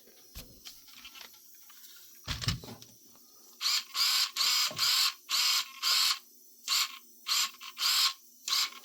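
RC truck's steering servo whirring as the front wheels are swung side to side, in about ten short bursts through the second half. A short low thump comes about two and a half seconds in.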